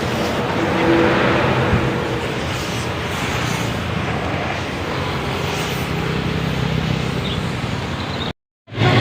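Road traffic: vehicle engines running with steady road noise as traffic passes. The sound drops out completely for a moment near the end.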